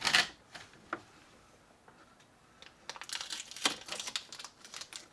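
Electrical wire being handled by hand: a brief rustle at the start, a single click about a second in, then a run of rustling, crackling clicks in the second half.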